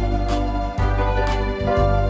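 Instrumental music on a Yamaha keyboard: sustained organ-like chords over a low bass line that changes note, with a soft beat about once a second.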